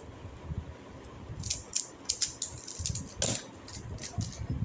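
Two plastic 3x3 puzzle cubes being turned quickly by hand during a speed solve: an irregular clatter of sharp clicks as the layers snap round.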